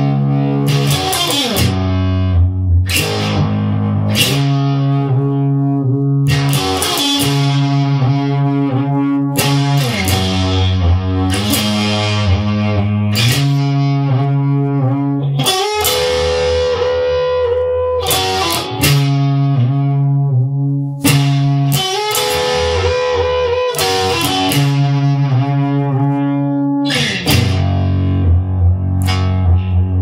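Guitar music without singing: chords struck every second or two and left to ring.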